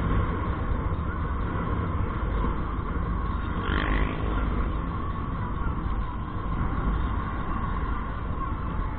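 Honda motorcycle riding along a road: steady engine and rushing wind noise, with a brief louder rush about four seconds in.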